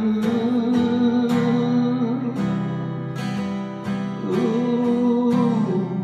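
Acoustic guitar strummed in slow chords, about one stroke a second, with a man's long held sung note ringing over the first two seconds.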